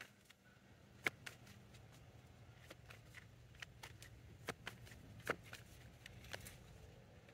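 Tarot cards being shuffled and handled: scattered soft card snaps and taps at irregular spacing, the loudest just past five seconds in, over a faint steady low hum.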